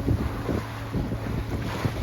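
Wind buffeting the microphone aboard a sailing yacht under way, in irregular gusts, with a faint steady low hum underneath.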